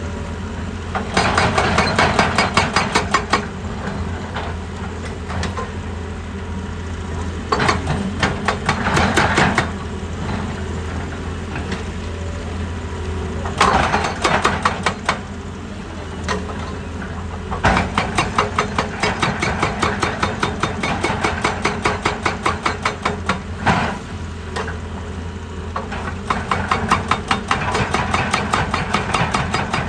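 Excavator's diesel engine running steadily, with repeated bursts of rapid, regular knocking lasting a few seconds each.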